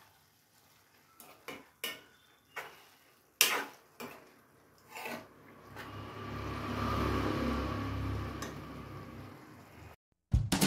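A spoon knocks and scrapes against a steel kadhai as thick gajar ka halwa is stirred, with several separate clinks at first. Then come a few seconds of continuous stirring noise. Music starts right at the end.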